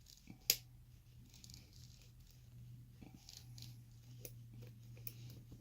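Lock pick and tension wrench working the pins inside an ABUS 83/55 padlock: faint scratching and light clicks, with one sharp click about half a second in, over a steady low hum.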